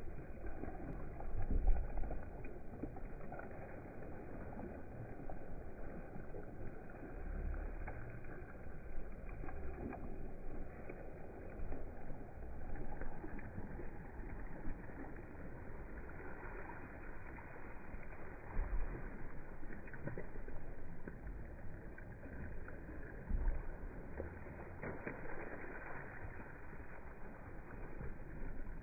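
Water rushing and splashing around a dragon boat as its crew paddles, a steady wash of noise. A few short low bumps stand out now and then.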